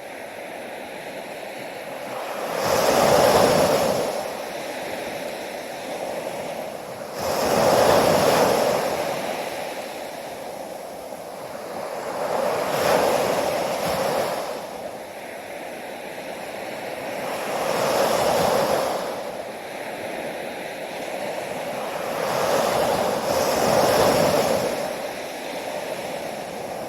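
Ocean waves breaking, one after another in a slow rhythm: five swells, about five seconds apart, each rising to a crash and then washing away.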